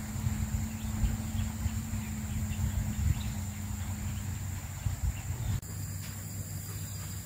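Forest ambience: a steady high insect whine, faint scattered bird chirps, and a fluttering low rumble of wind on the microphone. The background changes abruptly about five and a half seconds in.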